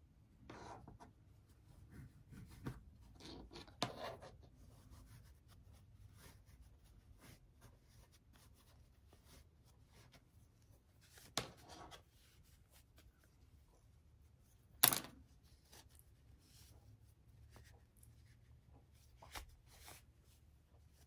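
Muslin fabric rustling and rubbing as a sewn piece is turned right side out by hand and pushed out with a chopstick, with scattered light clicks and taps. One sharper tap stands out about fifteen seconds in, and a smaller one a few seconds before it.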